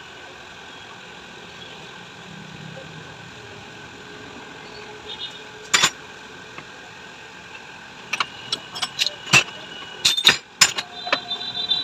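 Metal parts and hand tools clinking against a motorcycle mono-shock absorber being dismantled: one sharp clink about six seconds in, then a quick run of sharp metallic taps and clinks with brief ringing near the end, over a steady background hum.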